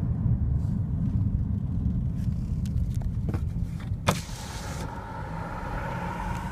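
Car running, a steady low rumble of road noise heard from inside the cabin. About four seconds in there is a sharp click, then a steady tone of several notes held to the end.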